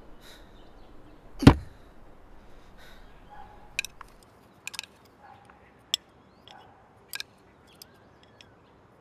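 One loud, sharp knock about a second and a half in, followed by several light clicks and taps spaced irregularly over the next few seconds.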